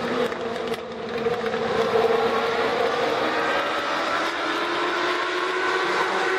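Legends race cars lapping a short oval, their motorcycle engines running together in a steady drone whose pitch wavers and glides gently as the cars go round.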